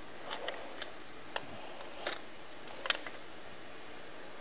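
Scattered light clicks and taps, about half a dozen at irregular intervals, from a hand handling hoses, fittings and connectors in an engine bay.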